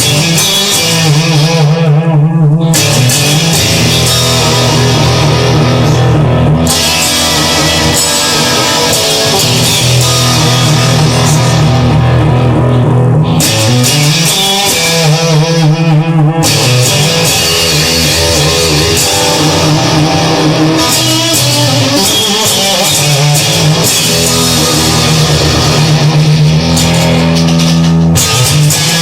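Rock music with no vocals: guitars, bass guitar and drum kit playing together.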